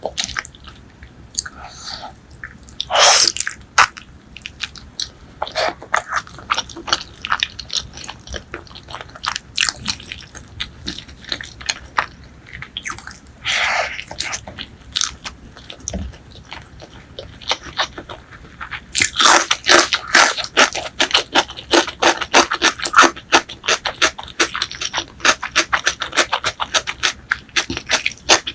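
Close-miked chewing of spicy pork leg curry and white rice: scattered bites and chews, with two louder longer bursts about three and fourteen seconds in. The chewing turns dense and rapid for the last third.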